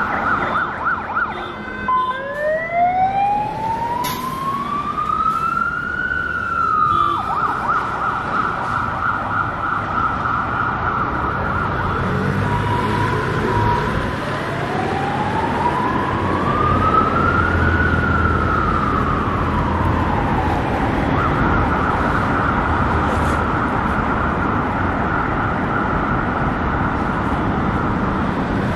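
Emergency vehicle siren switching between a slow wail that rises and falls over several seconds and a rapid yelp, over the steady noise of road traffic.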